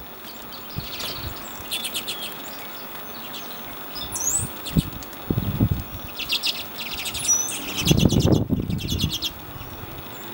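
An American robin splashing and fluttering its wings in a shallow puddle as it bathes, in several short bursts, the biggest near the end. Small birds chirp and give short whistled calls in the background.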